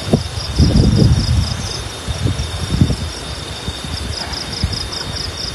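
Insects chirping in a fast, even pulse, about four chirps a second, over irregular low rustling and thumping.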